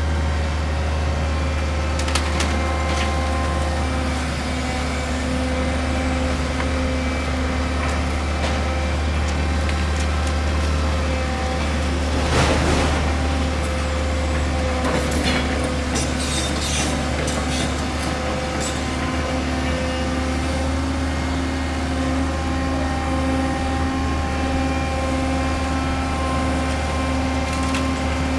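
Tracked excavator's diesel engine running steadily while its bucket tears into a building's roof. Midway there is a crash of falling debris, followed by a few seconds of clattering and clanking rubble.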